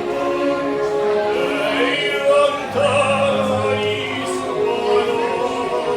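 Operatic singing: a voice holding long notes with vibrato over musical accompaniment.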